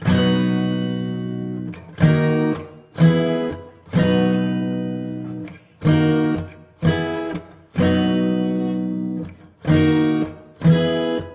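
Acoustic guitar strumming the opening chords of a rock song. Each chord is struck hard and left to ring and fade, with a new one roughly every second or two.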